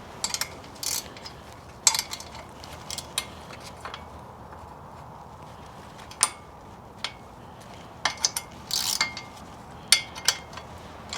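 Metal hand tools clicking and clacking in short, irregular bursts of sharp clicks, densest near the end, during work on a motorcycle wheel.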